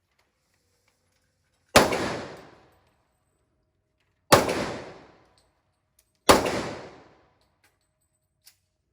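Three handgun shots about two seconds apart, each sharp report ringing out over about a second.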